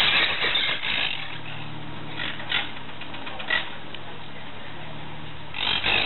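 Monk parakeets screeching harshly, with a burst of calls at the start and another near the end and a few short squawks between. A low steady hum runs underneath through the middle.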